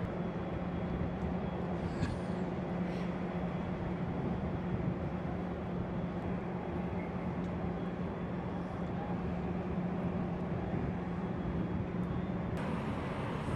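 Steady low mechanical drone with a constant hum, the machinery of a large warship heard from the pier, with more hiss in the last second.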